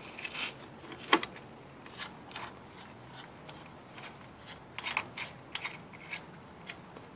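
Scattered light metallic clicks and knocks as a hand works a metal fitting beside a power steering rack: one sharp knock about a second in, then a short cluster of clicks about five seconds in.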